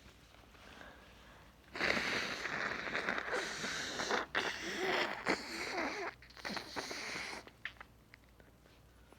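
Heavy nose blowing: three long, forceful blows, the first about two seconds in, with a wavering honk in the noise, clearing a nose stuffed up by pollen allergy.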